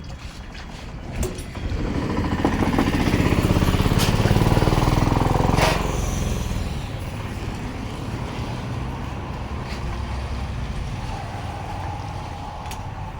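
A motor vehicle's engine passing close by, building over the first two seconds, loudest for a few seconds, then fading away about six seconds in, leaving steady road traffic noise.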